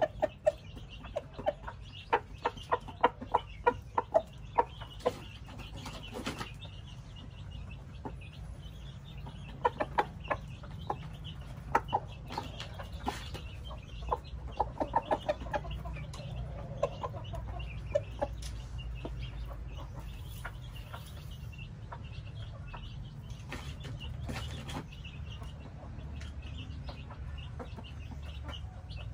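Aseel rooster clucking in runs of short, rapid clucks, mostly in the first half, over a steady low background hum.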